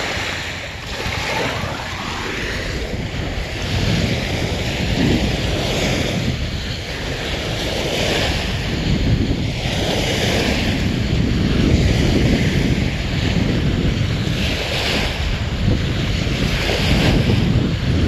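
Small waves breaking and washing up on a sandy shore, the surf swelling and fading every few seconds, with wind buffeting the microphone.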